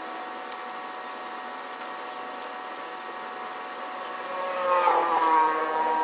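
A motor vehicle engine running steadily, growing louder and passing close about five seconds in, its note dropping as it goes by.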